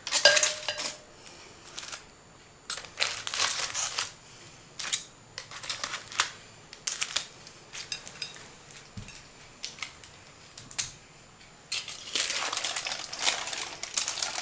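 Aluminium foil crinkling and rustling in irregular bursts as foil-wrapped baked potatoes and a foil covering are handled and pulled open over a slow cooker, busiest near the end. A short clink with brief ringing at the start, of the tongs or lid against the crock.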